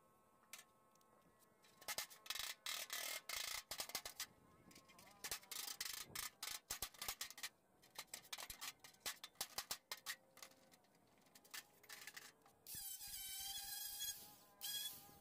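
Irregular short scraping and rubbing strokes of a hand tool on a sheet-metal edge, followed about 13 seconds in by a cordless angle grinder running briefly against the edge of the steel panel.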